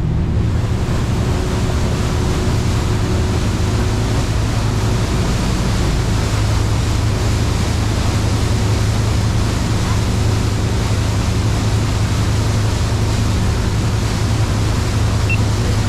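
Tour boat under way: the engine running at a steady low hum beneath a constant rushing noise of wind and water.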